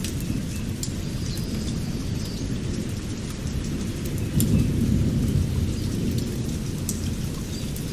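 Steady rain with a low rolling rumble of thunder and scattered sharp drips; the rumble swells a little about four seconds in.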